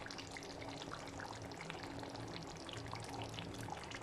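A pot boiling on the stove: steady bubbling with many small scattered pops.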